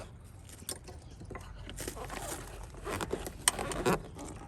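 Light handling noise of an Allen wrench being worked into a seat belt retractor to hold the webbing from retracting. Scattered scrapes and rustles, with a few sharp clicks, one louder about three and a half seconds in.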